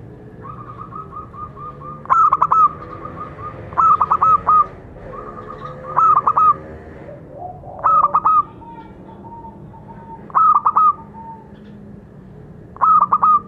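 Zebra dove singing: six loud phrases, one about every two seconds, each a quick run of staccato cooing notes, with softer trilling notes in between.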